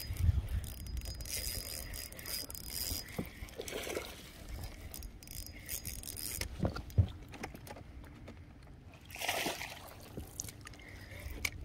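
Fishing reel being cranked in spells while a hooked largemouth bass is played in, with light water splashing.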